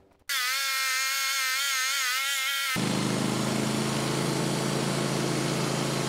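Band sawmill running and sawing through a hard ash log on an old, resharpened blade. About three seconds in, the steady whining hum changes abruptly to a denser rushing noise over a low hum.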